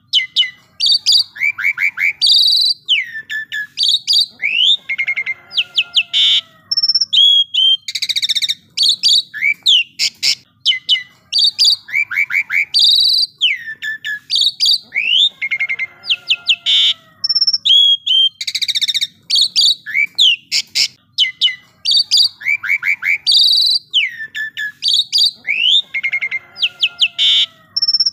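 Asian pied starling (jalak suren) singing loudly and continuously, a varied song of slurred whistles, rapid trills and harsh chattering notes. The same sequence comes round again about every ten seconds.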